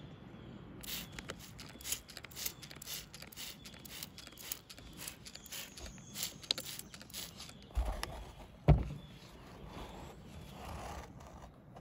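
Quick scratchy brush strokes, two or three a second, scrubbing a wet old carpet floor mat. Near the end come two heavy thumps, the second the loudest, then softer rustling.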